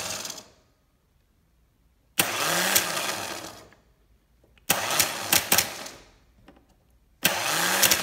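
Honda Civic starter motor bench-tested off the car, jumped with a screwdriver across its solenoid terminals. Each time there is a crackle of sparking clicks as the solenoid throws the pinion out, then the motor whirs up and spins down over about a second and a half. This happens three times, about two and a half seconds apart, after the tail of an earlier run at the very start. The owner thought it seemed a little weak.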